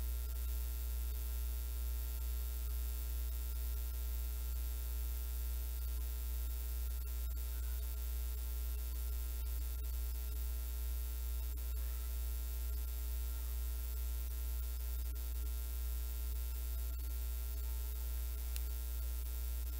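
Steady low electrical mains hum with a buzz of steady tones above it, unchanging throughout, over a faint even hiss.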